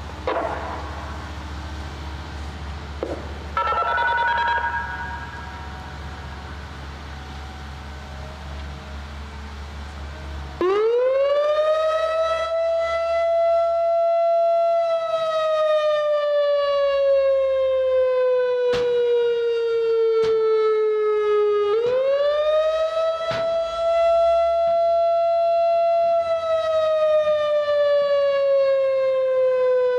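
Whelen WPS-2750 electronic outdoor warning siren sounding its wail tone, starting about ten seconds in: the pitch climbs quickly, holds for a few seconds, then slides slowly down, and the cycle begins again. This wail is the signal for a hazardous-materials or chemical-spill warning.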